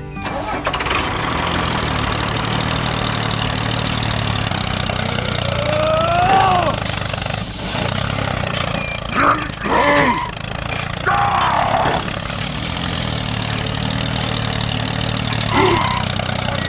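A tractor engine running with a steady, low rumble. Several short voice-like cries and grunts rise and fall over it in the second half.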